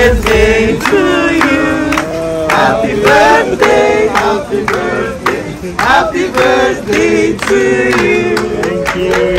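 A group of voices singing together, with hand-clapping, as a birthday cake is brought to the table.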